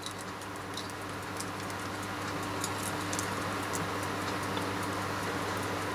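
Faint, irregular clicks and ticks of fingers handling a small Bluetooth headset circuit board and pressing its tiny buttons, over a steady background hum.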